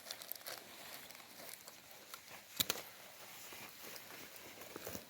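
Faint rustling and crinkling with scattered small clicks, and one sharper click about two and a half seconds in.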